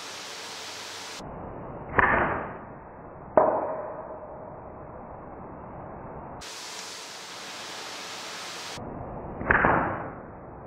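Slingshot shots with 6mm steel balls, twice. Each shot is a loud swish that fades over about half a second, and on the first shot a sharp hit with a short metallic ring follows about a second and a half later.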